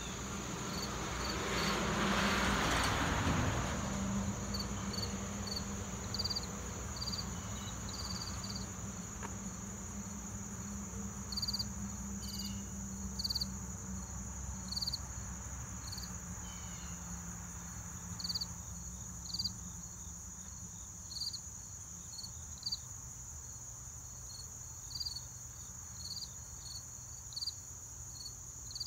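Crickets chirping: a steady high insect trill with a louder chirp repeating about once a second. A rush of noise swells and fades in the first few seconds, and a low hum drops away about two thirds of the way through.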